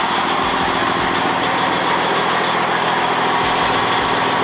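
Semi truck's diesel engine idling steadily, with a steady hiss-like noise over it.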